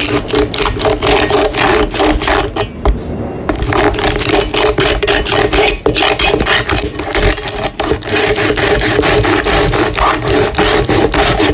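A blade sawing and scraping at the plastic casing of a power bank, in quick repeated strokes with a short pause about three seconds in.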